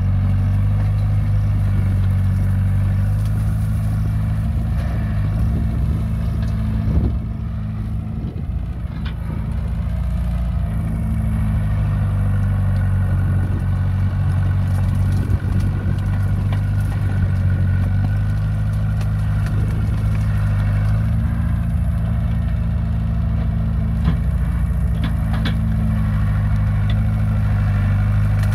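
Caterpillar bulldozer's diesel engine running steadily with a deep low hum, easing briefly about a quarter of the way in before settling back.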